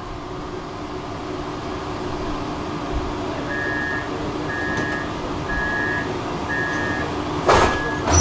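Tram door warning beeper sounding four short beeps about a second apart, then one longer beep, signalling that the doors are about to close. Under it the stopped tram's equipment hums steadily, and a loud rush of noise comes twice near the end.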